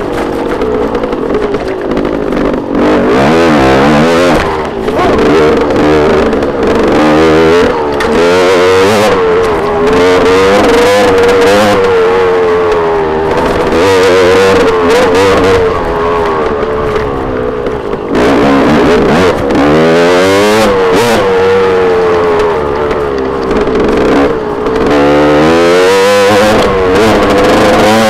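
KTM 250 enduro dirt bike engine being ridden hard on a dirt trail, revving up and down repeatedly as the rider accelerates, shifts and backs off, its pitch rising and falling every second or two.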